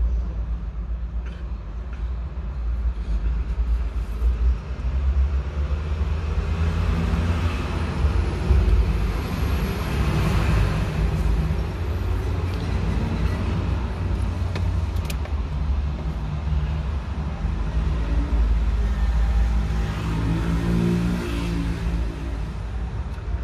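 Street traffic noise: a continuous low rumble of car engines, with faint voices in the middle and near the end.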